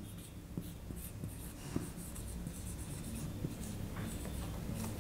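Marker pen writing on a whiteboard: faint short scratching strokes with small ticks as the tip meets the board.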